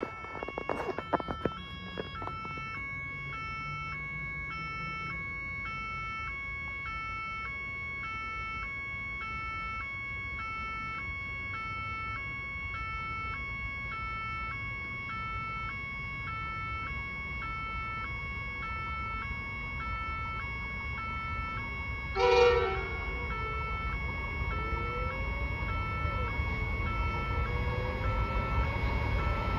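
Level crossing warning alarm, a two-tone electronic signal alternating between two pitches about twice a second. A freight train is approaching: a short blast of the diesel locomotive's horn comes about three-quarters of the way in, and the low rumble of the train grows near the end.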